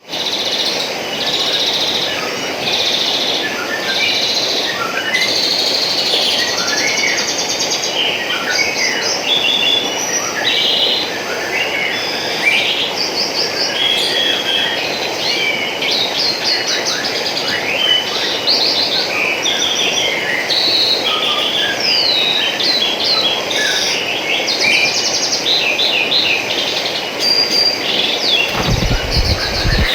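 Babbling stream water running steadily, overlaid with many songbirds chirping and trilling throughout. A brief low rumble comes near the end.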